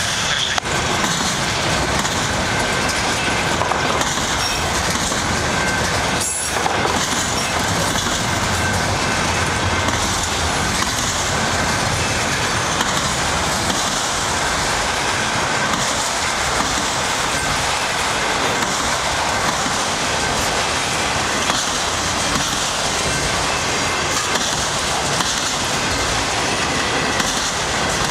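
Autorack cars of a long freight train rolling past close by at speed: a steady, loud noise of steel wheels running on the rails.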